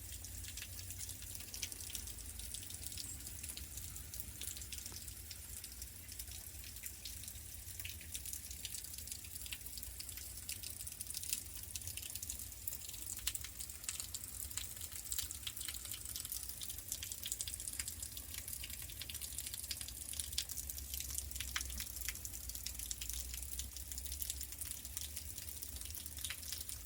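Steady dense patter of icy drops falling on ice-coated trees and ground during an ice storm, over a low rumble; it cuts off abruptly at the very end.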